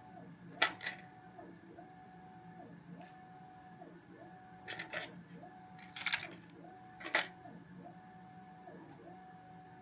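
A few sharp clicks and taps of small hard parts being handled, in small clusters, over a faint repeating tone pattern of soft background music.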